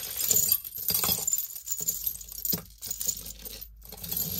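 Tangled metal necklaces and pendants clinking and jingling as they are pulled out of a pile of jewelry and handled, with irregular light clinks.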